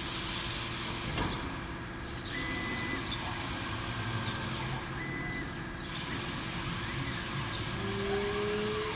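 A small 6090 hobby CNC router running with a steady machine hum. Two short high tones sound about two and five seconds in, and a tone rises slowly near the end.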